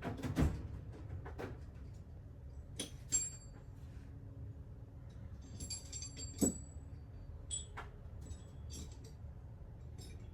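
Scattered metallic clicks and clinks of a socket wrench and extensions being handled, a few of them ringing briefly, over a low steady hum.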